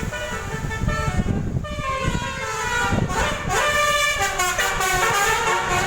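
Bus telolet horn, a Basuri multi-tone air horn, playing a tune of stepping and gliding notes with several tones sounding together, starting about a second and a half in, over engine and road rumble.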